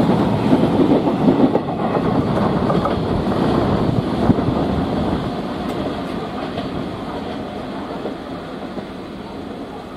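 Freight train wagons rolling past with a clickety-clack over the rail joints, the sound steadily fading as the train draws away.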